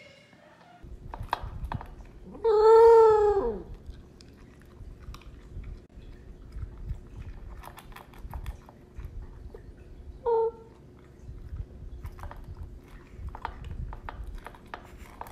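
Pembroke Welsh corgi eating from a bowl, with steady crunching and chewing clicks. She gives her food "awoo": one loud howl about two and a half seconds in, lasting about a second and rising then falling in pitch, and a short second howl around ten seconds in.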